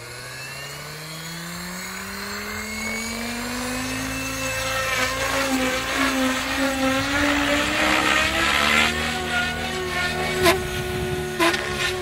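Electric RC model helicopter spooling up: its motor and rotor whine rises steadily in pitch as the head speed builds, then it lifts off and flies with a loud, steady whine that wavers as it manoeuvres. Two sharp clicks come near the end.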